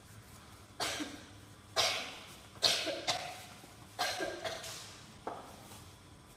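A person coughing five times, about a second apart, the last cough weaker.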